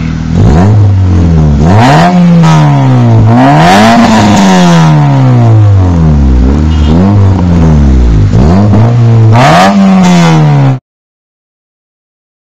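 2012 Honda Civic Si's 2.4-litre four-cylinder revved repeatedly at standstill, exhaling through an Ultimate Racing downpipe with catalytic converter and no resonator or second muffler. It goes through about six loud rises and falls in pitch, then cuts off abruptly near the end.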